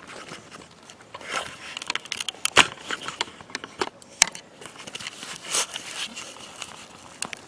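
Footsteps crunching and rustling through dry fallen leaves, with irregular crackles and a few sharp clicks, the sharpest about two and a half seconds in.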